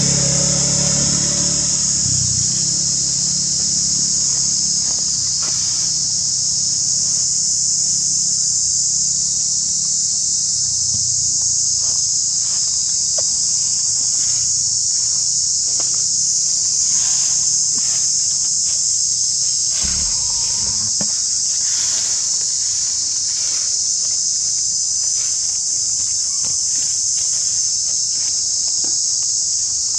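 Steady, high-pitched insect chorus, with scattered light rustles and clicks of dry leaves as monkeys shift about on the leaf litter.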